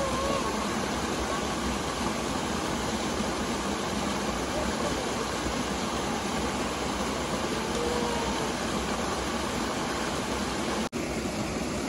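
Small mountain-stream waterfall pouring over boulders into a shallow rocky pool: a steady rush of falling and splashing water.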